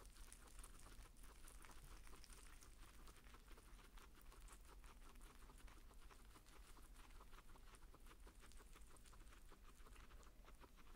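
Two guinea pigs chewing fresh leafy greens: faint, rapid, crisp crunching clicks from their nibbling.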